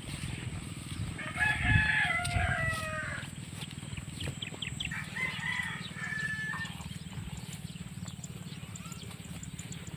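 Rooster crowing twice: a loud, long crow about a second in and a fainter one around five seconds in, over a steady low hum.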